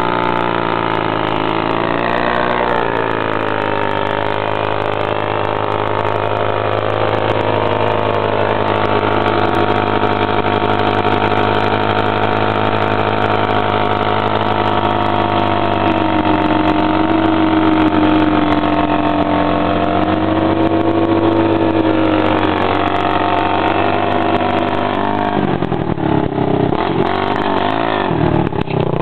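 Suzuki DR350 single-cylinder four-stroke dirt-bike engine held revved for a burnout, its rear wheel spinning in grass; the engine note stays steady with slight rises and falls. About 25 seconds in the revs drop and waver unevenly.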